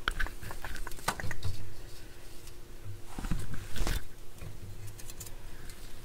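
Handling noises on a reel-to-reel tape deck: a quick run of small clicks and knocks, then a louder rustling scrape about three to four seconds in.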